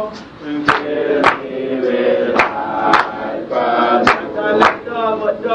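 Group singing or chanting in unison, with sharp percussive strokes keeping a steady beat, roughly one every half second with occasional longer gaps.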